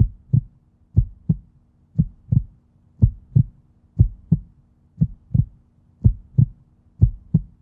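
Heartbeat sound effect: paired low thumps, lub-dub, repeating about once a second, with a faint steady hum beneath.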